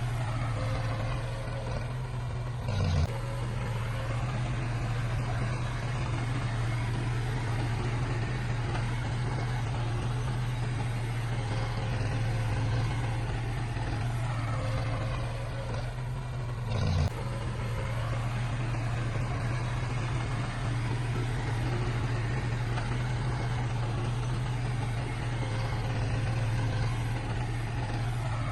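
Heavy diesel engine of earthmoving machinery running steadily with a low drone. There is a short loud knock twice, about three seconds in and again about fourteen seconds later.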